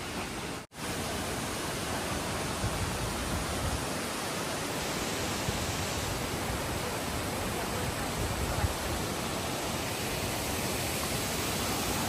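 Steady rushing of Nachi Falls, a tall waterfall pouring down a cliff onto rocks. The sound briefly cuts out under a second in, then runs on evenly.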